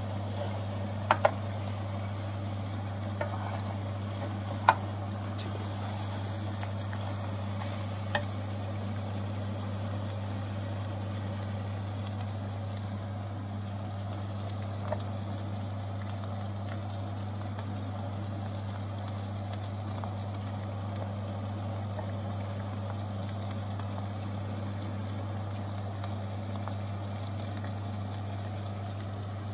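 Chicken curry sizzling steadily in a stainless steel pot, over a steady low hum. In the first eight seconds a metal spoon clinks sharply against the pot a few times while stirring.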